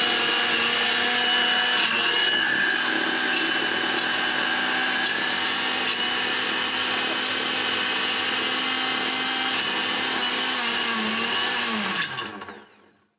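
Bajaj Majesty mixer grinder's motor running at full speed, grinding dry ingredients in its steel jar with a steady whine. About twelve seconds in it is switched off and the pitch falls as the motor spins down.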